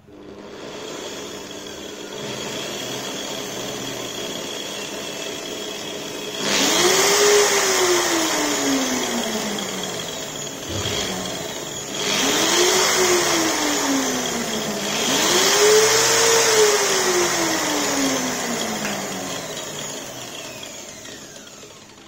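Angle grinder's universal motor running through an SCR speed controller, its speed changed by the knob: it runs low and quiet for the first few seconds, then three times speeds up quickly to a high whine and slowly winds back down. Near the end it slows toward a stop.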